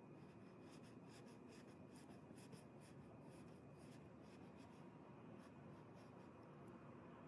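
Faint scratching of a small flat paintbrush stroking and dabbing thick white paint onto the painting: a series of short, soft scrapes, a few a second, most frequent in the first half.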